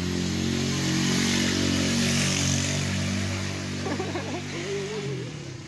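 A small engine running steadily, growing fainter toward the end.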